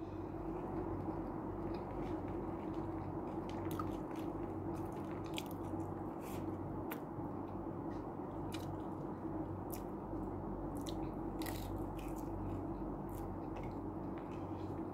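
A person eating with the hands close to the microphone: chewing with scattered small crunches and mouth clicks, over a steady low hum.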